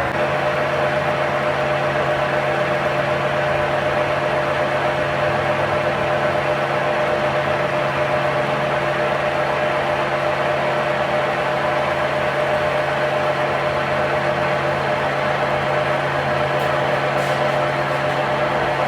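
A machine running steadily, a constant hum with a steady whine over a noisy wash, unchanging throughout.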